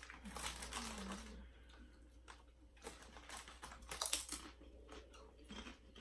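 Faint crinkling of a foil potato chip bag as chips are pulled out, with scattered crisp crunches of chips being bitten and chewed. The loudest crunches come about four seconds in.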